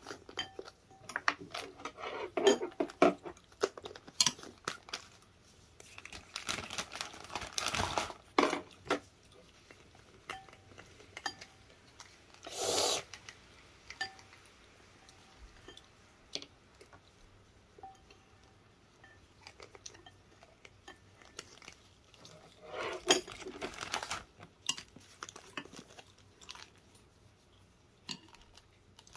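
A metal spoon clinking and scraping against a ceramic bowl while eating, with chewing between spoonfuls. The clatter comes in scattered bunches, with a short louder burst of noise about halfway through.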